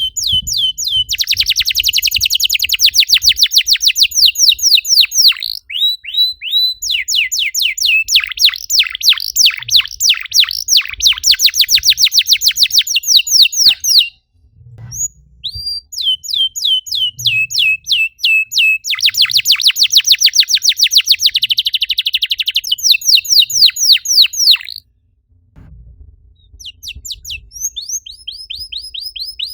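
Domestic canary singing long, fast trill phrases of rapidly repeated sweeping notes, broken by brief pauses about halfway and again near the end.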